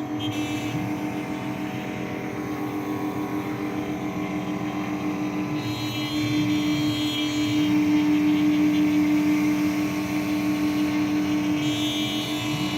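CNC router cutting PVC foam sheet: a steady spindle whine, with the axis motors' lower hum sliding up and down in pitch as the cutting head changes speed and direction. It grows louder for a few seconds in the middle.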